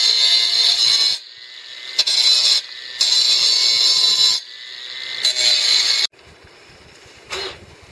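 Handheld power tool working a wooden board, running in three bursts of one to two seconds each, a high-pitched whine with a rattle, then stopping about six seconds in.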